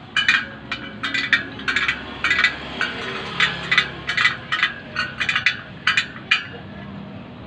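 Irregular metallic clinking from a spoke wrench working on the steel spokes and nipples of a KLX 250 rear wheel as the spokes are tightened, several sharp clinks a second, stopping near the end.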